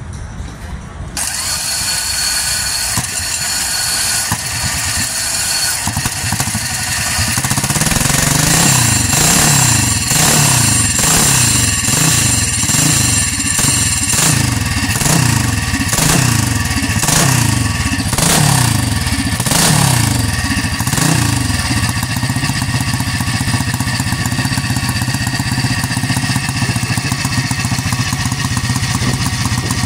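Aermacchi racing motorcycle's horizontal single-cylinder engine being started. It is then revved in repeated throttle blips, rising and falling about once a second, and settles into a steady idle over the last several seconds.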